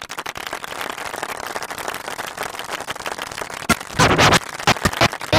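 Audience applauding, with a louder surge about four seconds in.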